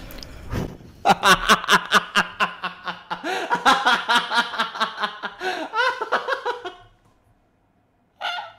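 A man laughing hard, a long run of rapid ha-ha pulses about five a second that trails off after several seconds, followed near the end by one short further burst of laughter.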